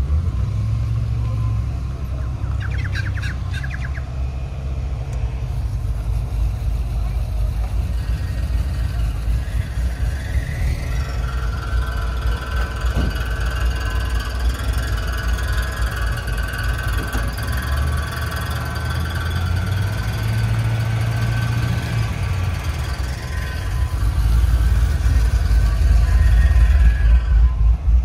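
Car engine running with a deep, uneven rumble, growing louder near the end as the car comes closer or is revved.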